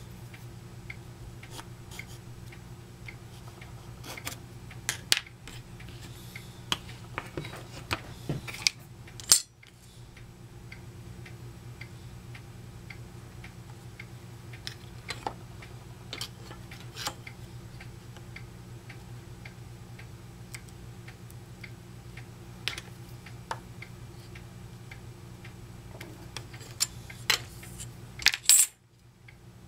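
Steel rule and combination square clicking and tapping against a wooden disc and workbench as they are set down and shifted, scattered light clicks over a steady low hum. A louder click comes about nine seconds in and another near the end, each followed by a brief dropout.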